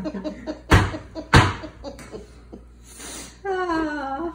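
A man's stifled laughter: two sharp bursts of breath about half a second apart, then a held voiced note near the end that rises slightly.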